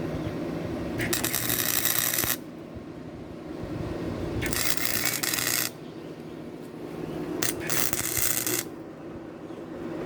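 Gasless flux-core wire-feed welder arc crackling in three short spot welds, each about a second long and starting and stopping abruptly.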